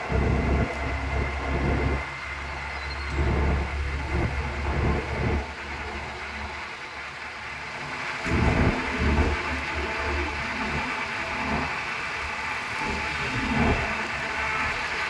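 Ride noise inside a moving open-sided rickshaw: the vehicle running along the road, with wind buffeting the phone's microphone in uneven gusts, heaviest in the first six seconds and again around eight to ten seconds in.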